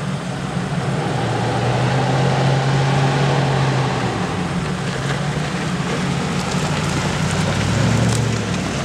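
Land Rover Defender's engine running steadily at low revs as it creeps down a steep dirt slope, with gravel and dirt crunching under the tyres. It grows louder near the end as the vehicle passes close by.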